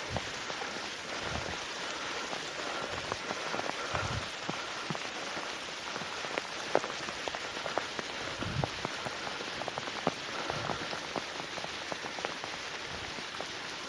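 Steady rain falling, with many sharp drop taps scattered through it and one louder tap about seven seconds in. A few low, dull thumps sound underneath.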